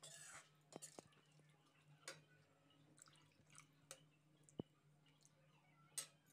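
Faint clinks of a slotted steel spoon against a steel kadhai and soft sloshing of thin curry as it is stirred and water is poured in, over a low steady hum.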